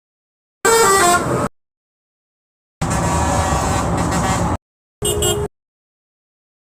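Three different vehicle horns sounded one after another with silence between: a honk of under a second, then a steady blast of almost two seconds, then a brief beep.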